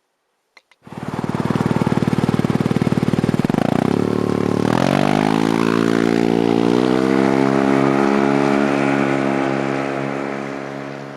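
An engine or motor starts about a second in and runs with a pulsing note, then speeds up with a rising pitch about five seconds in and settles into a steady, higher run, fading near the end.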